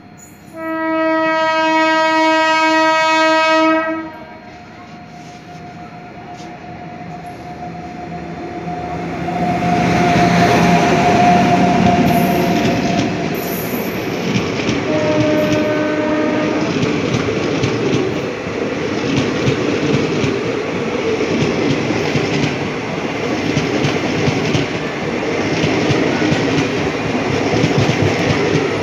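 A locomotive horn sounds one loud blast of about three seconds, then a passenger train passes close by with a loud steady rumble and the clatter of wheels over rail joints. A second, short horn note comes about halfway through. The passing train is the Pushpak Express, hauled by a WAP-7 electric locomotive.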